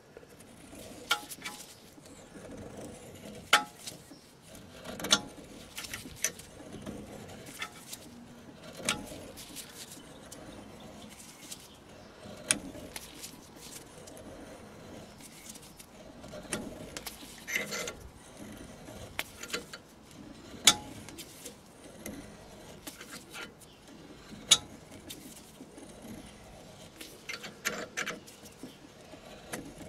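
Brake caliper piston wind-back tool's threaded force screw being turned by hand with its T-handle to push the piston back into the caliper: irregular sharp clicks and ticks every second or two over a low rubbing grind.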